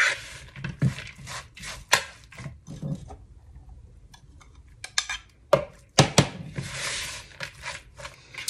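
A spatula stirring shredded cabbage and mayonnaise dressing in a plastic mixing bowl, with irregular knocks and clicks against the bowl and a glass measuring cup. A stretch of wet scraping and rustling comes near the end.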